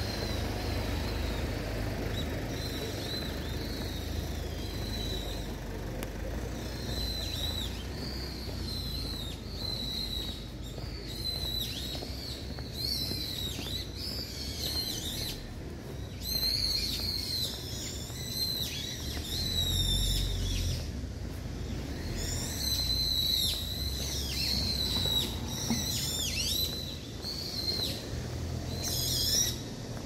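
A flock of songbirds chirping and calling, many short rising and falling chirps overlapping, sparse at first and growing busier after several seconds. A steady low rumble runs underneath.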